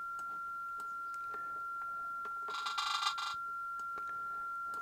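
Steady single tone from a shortwave receiver's speaker: a Garrett metal detector's 13.6 kHz transmit signal picked up by an Airspy HF+ Discovery and demodulated in upper sideband, an unmodulated carrier heard as one unchanging pitch just over a kilohertz. A short buzzy burst cuts in about two and a half seconds in and lasts under a second.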